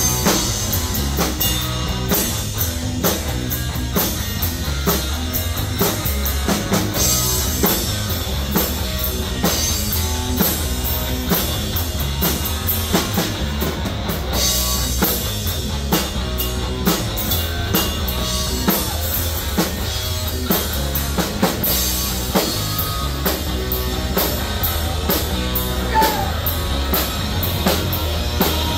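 Live rock band playing amplified: a drum kit keeps a steady driving beat under electric guitars.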